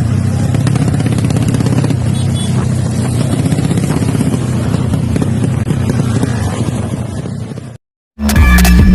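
Tuned small race motorcycle engine running loud and steady, fading over its last couple of seconds before cutting off suddenly. Electronic music starts just before the end.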